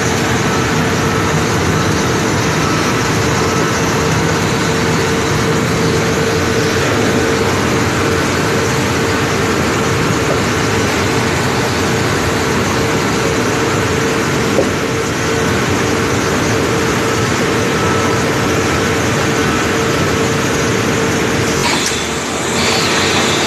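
Steady, loud machinery noise of an aluminium ingot casting conveyor and the plant around it, with a constant hum running through it. The noise dips briefly near the end and picks up again with a brighter, more rattling edge.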